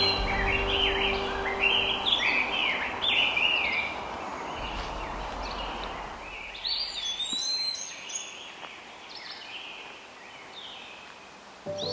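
Woodland birdsong: several birds singing quick, varied warbling phrases, busiest in the first half and thinning out later, with a clear whistled phrase about seven seconds in. A low background rumble sits under the first half and fades away.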